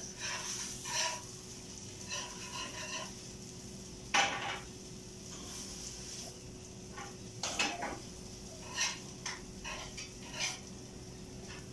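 Kitchen clatter of metal utensils and cookware: scattered clinks, knocks and scrapes against pots and the griddle where pupusas are cooking. The sharpest knock comes about four seconds in, and a faint steady hum runs underneath.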